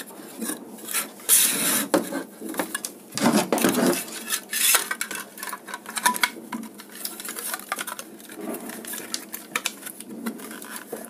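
Plastic switch-and-socket box being handled and fitted together on a wooden bench: irregular plastic clicks, knocks and scrapes, with a few louder scraping clatters in the first five seconds.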